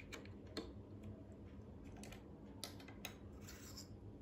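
Plastic LEGO plates and bricks clicking as they are pressed together and handled: a handful of light, separate clicks, with a short scuff of plastic on the table near the end.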